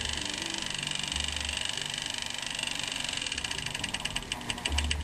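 Sewing machine motor running at its slowest speed to drive the bobbin winder, with a steady high whine that turns into a rapid ticking, about eight a second, near the end.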